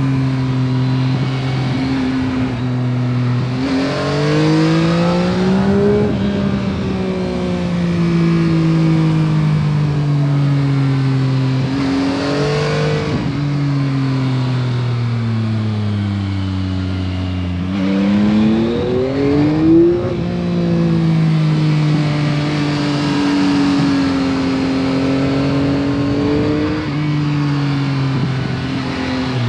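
Yamaha MT-09 SP's 890 cc three-cylinder engine through its stock exhaust, heard while riding. The engine note rises as the bike accelerates, then falls away slowly, picks up briefly, and sinks again. It climbs quickly to a loud peak about twenty seconds in, then settles to a steadier cruise, with road and wind noise underneath.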